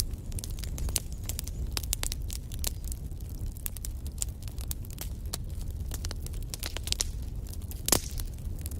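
Wood fire in a fireplace crackling, with frequent sharp pops of burning logs over the steady low rumble of the flames. One louder pop comes near the end.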